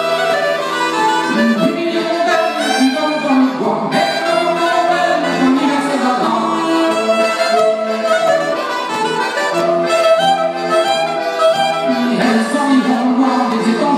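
Breton dance music: a bombarde and a diatonic button accordion play a tune together, with a man's singing voice joining in at times.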